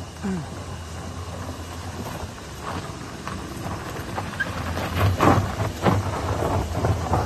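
Off-road vehicle climbing a loose sandy slope: the engine runs hard under a rising rumble of spinning tyres throwing sand and stones, with several knocks, the loudest a little past the middle.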